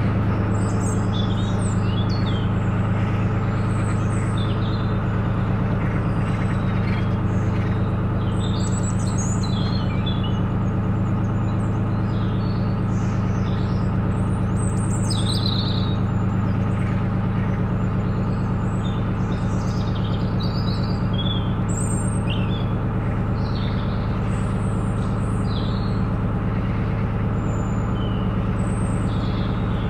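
Narrowboat engine running steadily with an even low hum, while small birds chirp on and off over it.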